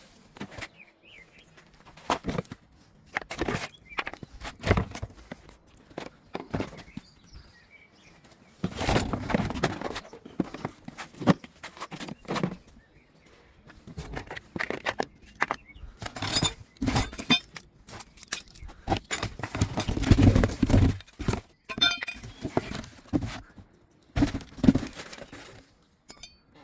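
Parts of an electric lawnmower being handled during assembly: irregular knocks and thunks, with louder stretches of rustling and scraping about nine and twenty seconds in.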